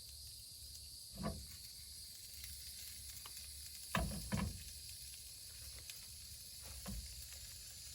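Steady hiss of a camp stove while breakfast is being cooked, with four soft knocks of cookware being handled, two of them close together about four seconds in.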